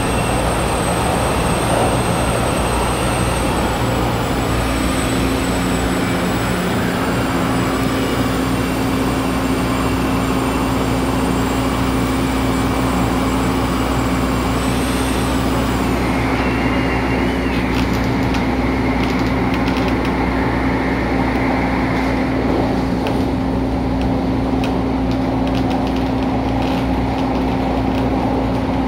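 Inside an MTR Tung Chung line A-train electric multiple unit on the move: a steady electric whine and low hum from the train's drive, with running noise and scattered light clicks in the second half.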